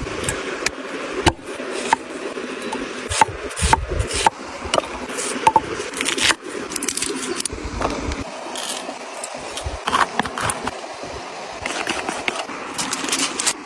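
Kitchen utensils scraping and knocking against a cooking surface, with many irregular sharp clicks and taps over a steady noisy background.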